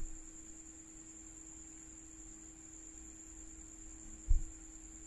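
Steady electrical hum with a thin high whine over faint hiss: background noise of the recording setup. A single brief low thump a little past four seconds in.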